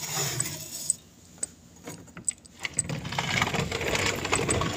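Scattered light clicks and rattles over rustling handling noise, as a window screen and curtain are handled close to the microphone.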